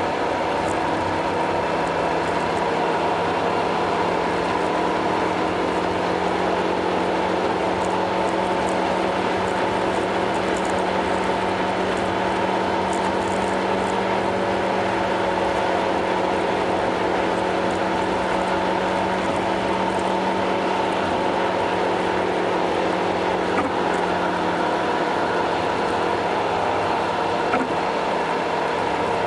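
Car cruising on an expressway: a steady drone of tyres, wind and engine, sped up to double speed so that it runs higher than normal. It holds a constant level throughout.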